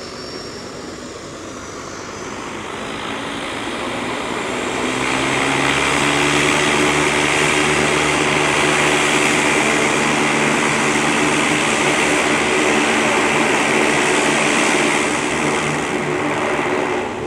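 Harbour Air de Havilland DHC-3 Otter floatplane's turbine engine and propeller running up at the dock. It grows steadily louder over the first few seconds into a high whine over a deep propeller drone, holds steady, then eases slightly near the end.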